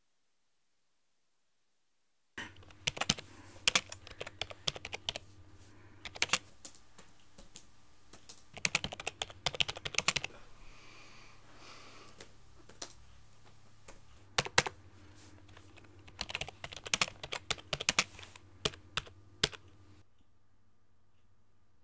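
Typing on a laptop keyboard, starting about two seconds in: short bursts of keystrokes with pauses between them.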